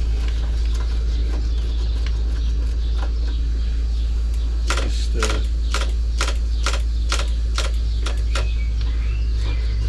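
A run of sharp metallic clicks, about a dozen a few tenths of a second apart, from a hand tool working loose the two 12 mm brake caliper bolts, over a steady low rumble.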